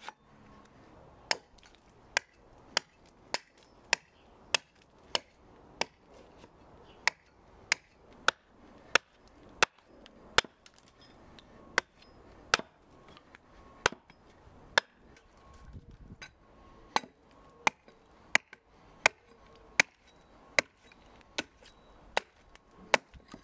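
Hand axe hewing a split billet of dry ash wood on a chopping block: a steady run of sharp chops, between one and two a second.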